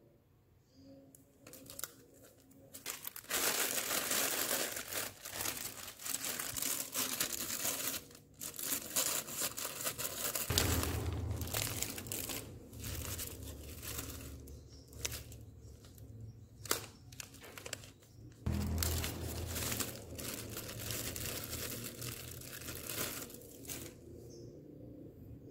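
Clear plastic packaging bag crinkling and rustling as it is handled and opened to take out a small accessory, in long spells of crackle broken by short pauses.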